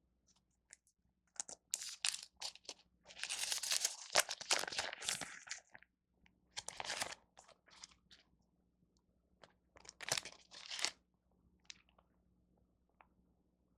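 Close-miked eating: crunchy bites and chewing of convenience-store food, in several bursts with quiet gaps between them. The longest and loudest burst comes about three to five seconds in.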